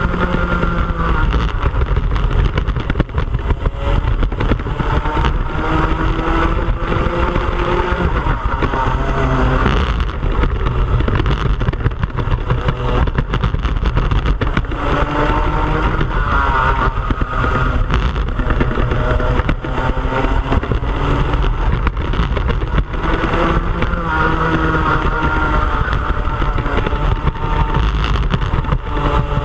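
Racing kart's two-stroke engine heard onboard at race speed, revving up in long rising sweeps and dropping back again and again.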